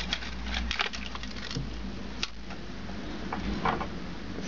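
Light clicks and rattles of an opened DVD-RW drive's plastic casing and the small shards of a shattered CD inside it as the drive is handled and tilted: a quick run of clicks in the first second, then a few scattered ones.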